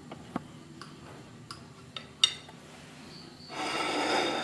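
Steel table knife clicking and tapping against a ceramic plate as it cuts down through a soft steamed caramel pudding, with the sharpest click about two seconds in. Near the end comes a scraping rub of about a second, louder than the clicks.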